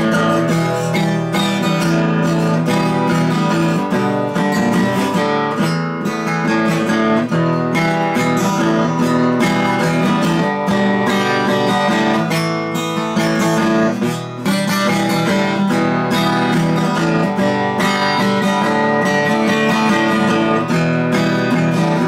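Acoustic guitar strummed and picked in a continuous instrumental passage, with no singing.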